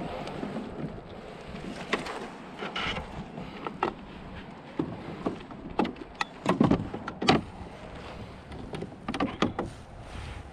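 Irregular knocks and clatter against a plastic fishing kayak as a landing net and a freshly landed bass are handled, with the loudest cluster of knocks about six to seven seconds in.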